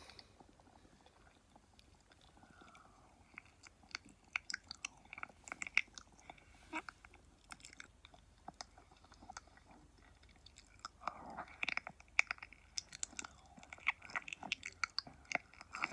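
Close wet mouth clicks and smacks into a binaural ear-shaped microphone, the 'ear eating' ASMR trigger with lips on the mic's ear. It starts faint and sparse, with irregular clicks picking up about three seconds in and growing busier after about eleven seconds.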